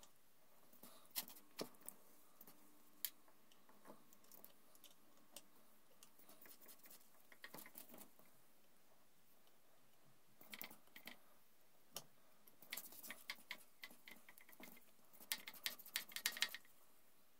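Faint, scattered metallic clicks and taps from a spanner and gloved hands working the brake-line fitting on a motorcycle's rear brake caliper, coming in quicker clusters in the second half.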